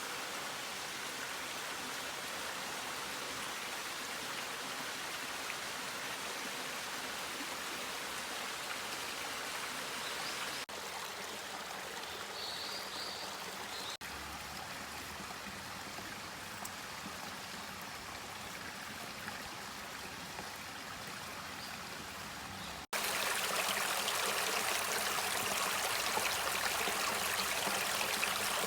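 Steady rush of running water, like a stream flowing, across several clips cut together; after a sudden cut near the end it is louder.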